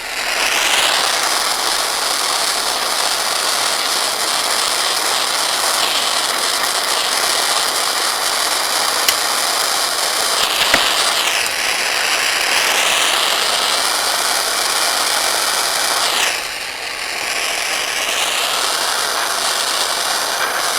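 Acetylene torch flame hissing steadily while it heats a saxophone post for soft soldering. The hiss changes in tone around the middle and dips briefly about three-quarters through.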